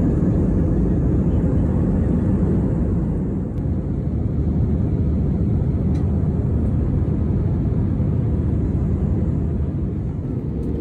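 Jet airliner heard from inside the cabin during takeoff and initial climb: engine and airflow noise, a loud, steady low rumble.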